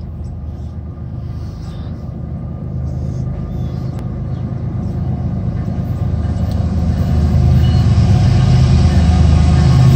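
Norfolk Southern diesel locomotives approaching, a low engine rumble growing steadily louder as the train nears.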